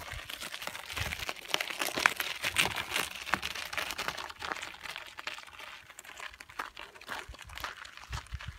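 Loose gravel crunching and crackling under footsteps close by, an irregular run of small crunches that is loudest over the first three seconds and then eases off.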